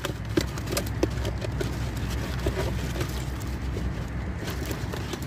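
Fish sliding and dropping out of a plastic bottle into a plastic bucket of fish: a run of irregular wet slaps and taps over a steady low rumble.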